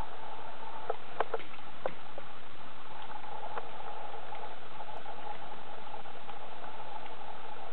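Siamese cat crunching dry kibble, a few crisp crunches about a second in, over a steady hiss.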